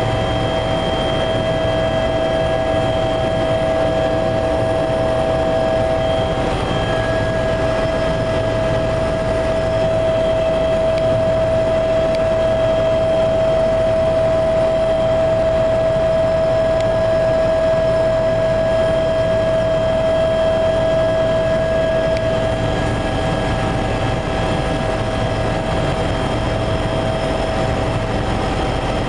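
Helicopter cabin noise in flight: a constant drone from the engine and rotors with a steady high whine running over it.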